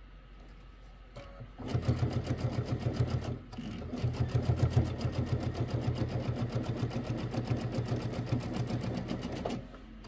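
Brother Luminaire sewing machine stitching a seam through quilt blocks at a rapid, even rate. It starts about two seconds in, stops briefly, then runs again until it stops just before the end.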